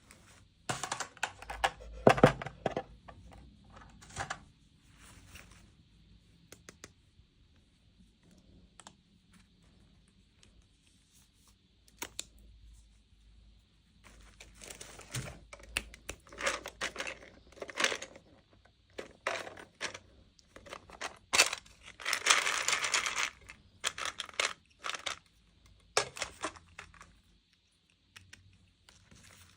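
Toy packaging being opened by hand: bursts of crinkling and tearing with small sharp clicks, separated by quiet pauses, with a longer tear or crinkle about 22 seconds in.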